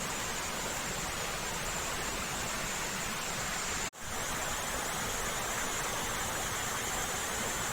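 Waterfall rushing in a steady, even noise, with a brief break about four seconds in.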